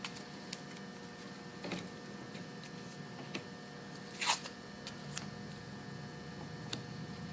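Quiet handling of masking tape on a windshield edge: a few faint ticks and one short rip of tape about four seconds in.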